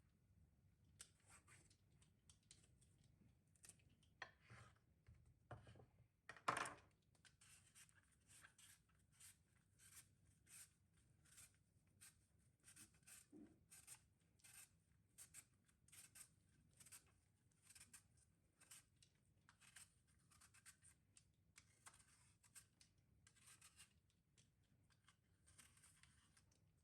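Faint, repeated short scratching strokes, roughly two a second, with one louder knock about six seconds in.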